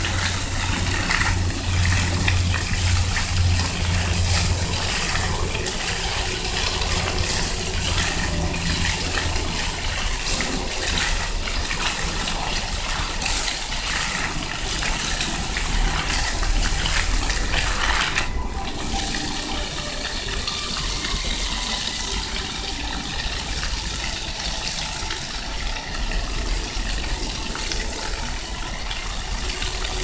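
Floor-fountain water jets spraying up and splashing back onto wet paving stones: a steady rush and patter of water. A low hum runs under it for the first third, and the spray noise breaks off briefly a little past halfway.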